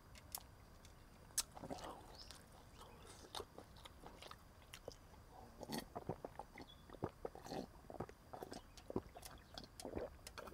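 Faint, irregular gulps and swallows of a person drinking steadily from a tin cup, with small wet clicks of the mouth and throat heard close up.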